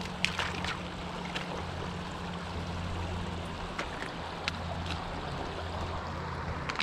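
Shallow creek water flowing and rippling over stones, a steady rush, with a low steady hum underneath and a few scattered sharp clicks.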